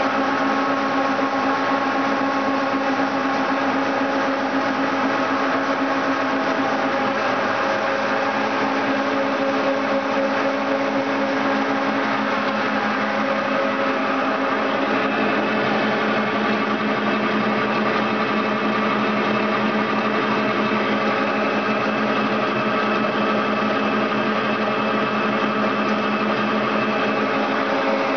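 Insta-Pro oilseed processing machinery running steadily while processing sunflower seed. The sound is a constant mechanical hum made of several steady tones over a broad, even noise, with no change in level.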